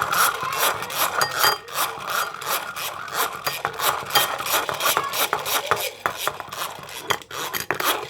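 Egg white being whisked by hand in a bowl to a foam: rapid, even scraping strokes of the whisk against the bowl.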